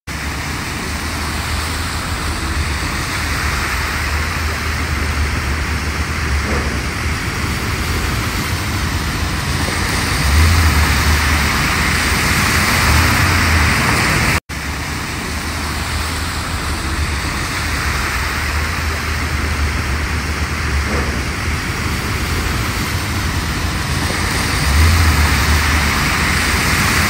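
Cars and trucks driving slowly through a flooded intersection: tyres swishing and splashing through standing water over a steady wash of water and traffic noise. A low engine rumble swells a couple of times as heavier vehicles pass.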